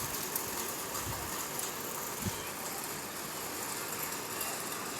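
Steady hiss of a rainstorm, heavy rain and wind, with one short low thud a little over two seconds in.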